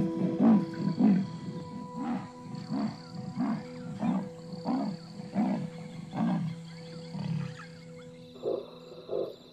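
A mother leopard calling for her dead cub: a regular series of rasping grunts, about one and a half a second, growing fainter, with two softer calls near the end.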